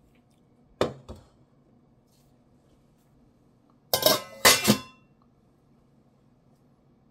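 A stainless steel mixing bowl set down on the counter with two short knocks about a second in. Near four seconds in, its stainless steel lid is laid on top: a rattle of metal-on-metal clinks with a brief ring.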